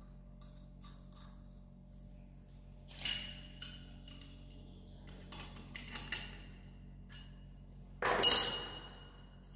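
Steel wrench clinking against a steel anchor bolt and nut set in a wall while the nut is worked loose: a few sharp metallic clinks that ring briefly, the loudest clank about eight seconds in.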